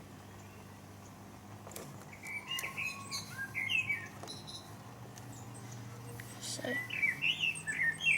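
Small birds chirping, a run of short twittering calls starting about two seconds in.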